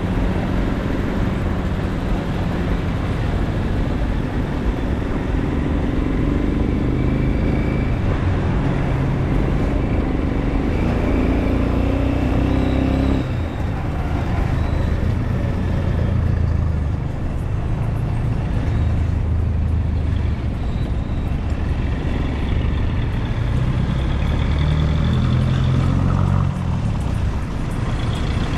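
Motorcycle engine running through city traffic, with traffic noise around it. The engine note climbs, then drops suddenly about halfway through.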